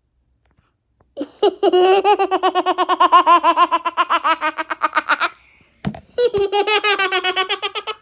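A girl laughing loudly in a rapid, even 'ha-ha-ha' cackle, in two long runs: the first starting about a second in and lasting about four seconds, the second after a brief pause near the end.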